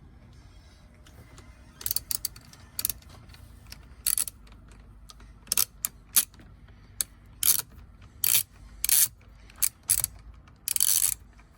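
Ratchet wrench with a Torx T30 bit clicking in short, irregular bursts as it is worked back and forth to back out a Torx screw, about a dozen bursts with a longer run near the end.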